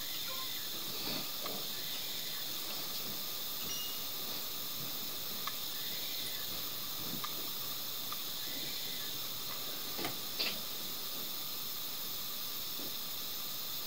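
Steady hiss of a recording's noise floor, with a few faint ticks, the clearest about ten seconds in.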